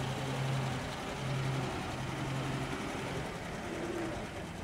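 Engine of a vintage RAF lorry tractor unit running at low revs as it drives slowly by, towing a long, empty low trailer: a steady low hum with brief dips.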